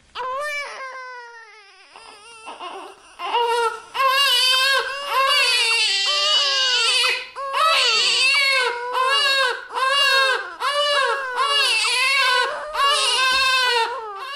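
Newborn baby crying: one long wail falling in pitch, then from about three seconds in a string of loud cries at roughly one a second, each rising and falling in pitch.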